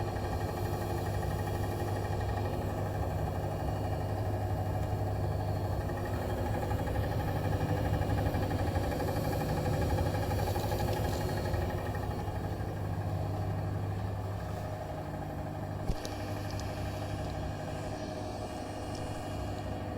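Bosch Serie 4 washing machine spinning: a loud, steady hum from the drum and spindle, which the owner takes for an abnormal noise though Bosch judged it normal. It eases off somewhat after about twelve seconds, with a single sharp click a few seconds later.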